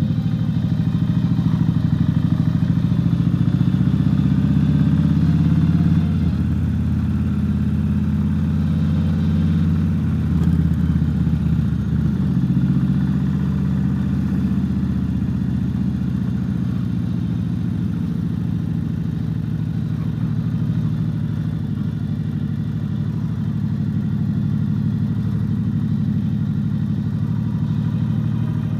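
Cruiser-style motorcycle engine running steadily while riding at low town speed, heard from the bike. The note rises and falls a little, slightly louder for the first several seconds and then easing off.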